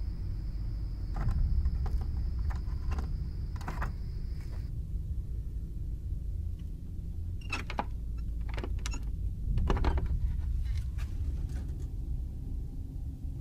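Handling noise from a handheld camera carried through a dark room: a low rumble with scattered short clicks and rustles, and a faint high whine that stops about a third of the way in.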